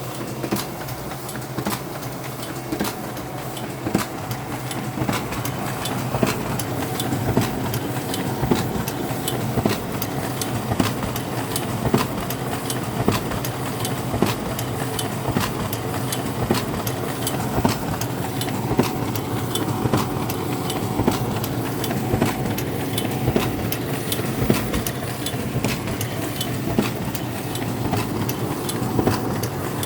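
Ricoh SP 5300DN laser printer running with a steady mechanical hum, broken by frequent sharp clicks several times a second. The clicking is an abnormal noise from the printer's mechanism.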